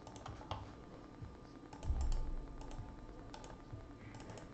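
Scattered clicks of a computer mouse and keyboard as a list is copied and pasted into a spreadsheet, with a dull low thump about two seconds in.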